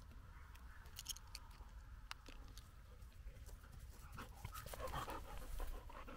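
A dog panting as it runs in with a retrieving dummy, louder from about four seconds in as it comes close, over a low rumble of wind on the microphone.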